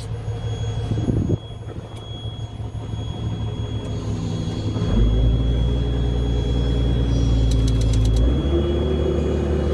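The all-terrain crane's upper (superstructure) diesel engine running, heard inside the operator's cab; about five seconds in the engine note rises and takes on a heavy low load as the hydraulics are worked to raise the boom, then about eight seconds in it settles into a steadier, higher hum.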